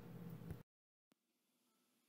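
Near silence: faint room tone that cuts to dead silence about half a second in.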